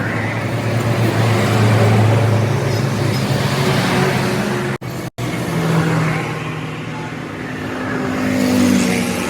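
A motor vehicle's engine running with road noise, its pitch shifting up and down. The sound cuts out twice, very briefly, about five seconds in.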